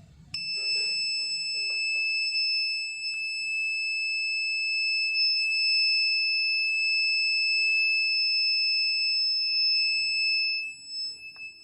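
Alarm buzzer of a BC547 transistor security alarm circuit sounding one steady high-pitched tone, starting just after the music cuts off. It dips briefly near the end, then carries on.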